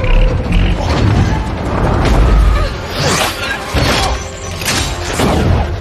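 Action-film sound mix: a dramatic music score over a deep, steady rumble, with several heavy crashes and booms about three to five seconds in.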